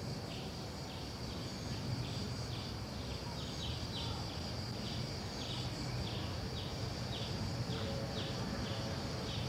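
Outdoor ambience with an insect chirping in short, even pulses about twice a second, over a steady high insect hum and a low background rumble.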